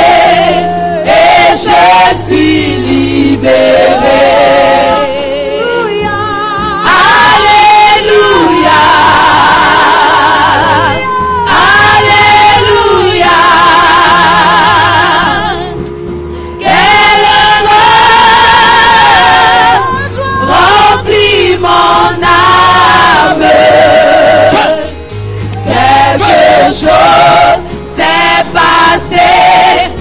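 Gospel choir singing a worship song over band accompaniment, in sung phrases of a few seconds each.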